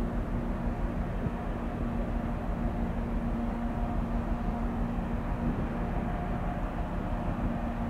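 Steady low drone of ship engines: a harbour tug and the vessels around it running, with a constant hum over a deep rumble.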